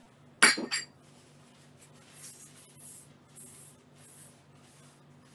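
A sharp clink, twice in quick succession, of a hard object such as a jar being set down on a table. This is followed by four or five soft swishing strokes of a cloth wiping the tabletop, over a faint steady hum.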